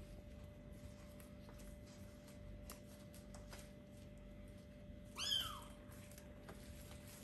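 A four-week-old kitten gives one short, high-pitched meow about five seconds in, its pitch rising and then falling. Faint scattered clicks and a low steady hum sit underneath.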